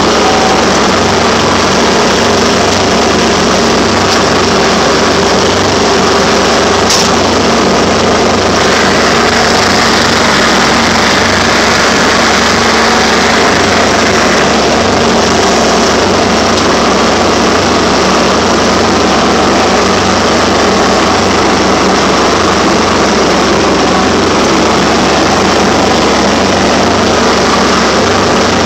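2004 Mahindra 3510 tractor's diesel engine running steadily under load while driving a 72-inch finishing mower, its blades spinning as it mows.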